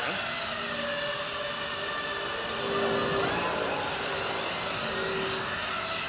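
A toy RC quadcopter's four small electric motors and propellers whirring steadily, their pitch wavering as the throttle changes.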